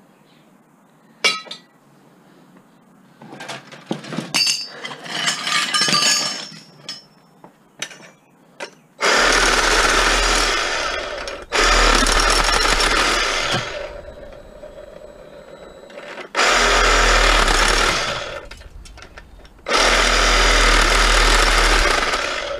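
Handheld power saw cutting into copper pipe beside a brass fitting in four runs of about two seconds each, scoring the pipe so that the brass can be bent off. Before the first cut there are metal clinks and knocks.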